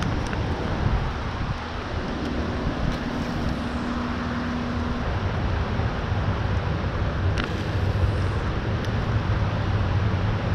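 Steady rushing outdoor background noise with a few faint clicks and, in the first half, a faint low hum.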